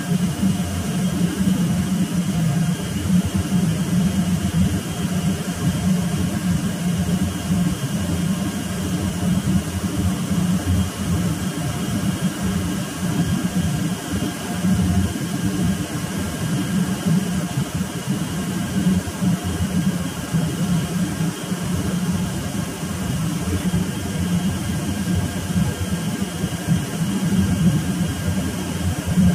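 Steady drone of shipboard machinery: a loud, even low hum with faint steady whines above it, unchanged throughout.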